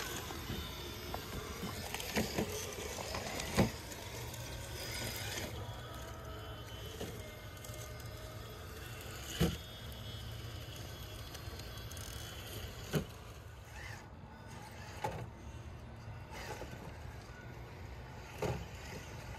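Traxxas TRX4 Bronco RC crawler climbing over rocks: the faint steady whine of its Castle 1412 brushless motor and drivetrain at crawling speed, with a handful of sharp knocks as the tyres and chassis strike stones.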